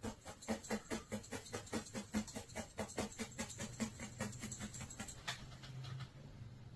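Felting needle stabbing repeatedly into wool, a quick even run of soft pokes about four to five a second, thinning to a few scattered pokes near the end.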